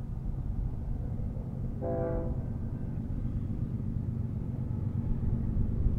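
Air horn of an approaching BNSF freight locomotive sounding one short blast about two seconds in, heard from a distance over a steady low rumble.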